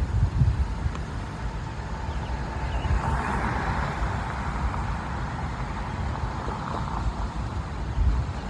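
Road traffic: a steady low rumble, with a vehicle passing that swells about three seconds in and fades away about four seconds later.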